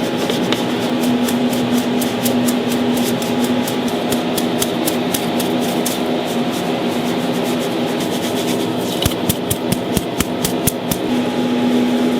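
Food-prep noise over a steady machine hum that holds two even tones, with many quick clicks and taps and a cluster of heavier knocks near the end.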